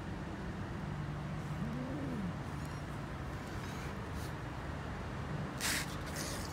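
A frightened kitten hissing twice in short, sharp bursts near the end, over a steady low hum.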